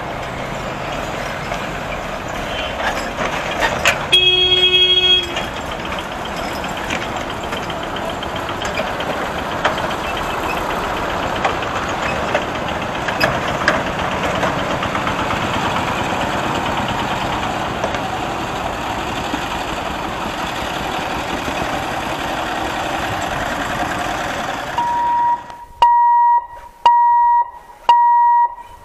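Road traffic crossing a railway level crossing: truck and small-vehicle engines running steadily, with a vehicle horn sounding for about a second some four seconds in. Near the end the traffic noise cuts off and a steady electronic beep repeats about once a second.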